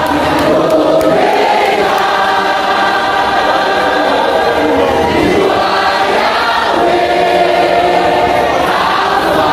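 A large crowd singing together in unison, loud and steady, with a short break between phrases about halfway through.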